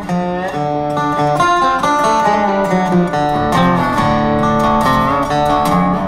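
Background music led by an acoustic guitar.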